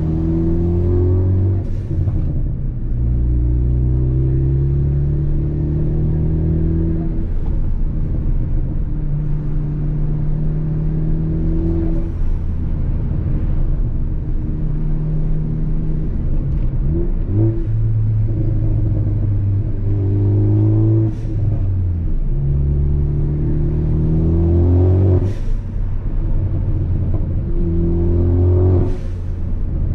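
Ford Focus ST engine and Borla cat-back exhaust pulling through the gears, the engine note rising in each gear and breaking at every shift. Several short, sharp pops and crackles on lift-off from the pops-and-crackles tune.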